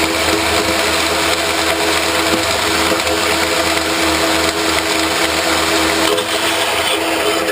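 Power saw cutting through a rusted exhaust pipe, its motor running at a steady whine over the harsh noise of the blade in the metal, then stopping at the end.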